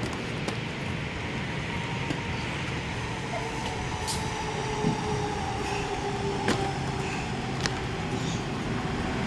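Steady background rumble with a faint drawn-out tone through the middle, and three light sharp clicks of parts being handled under the scooter's bodywork.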